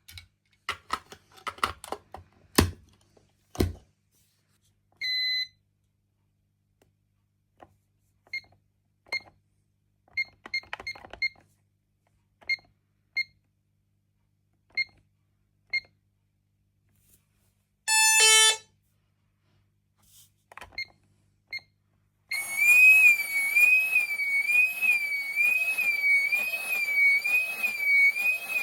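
Pyronix Euro 46 intruder alarm being worked at its keypad: clicking key presses, each with a short beep, one longer beep, and a quick run of stepped tones. About three quarters of the way through, the alarm sounder starts a loud warbling siren tone, rising and falling about twice a second.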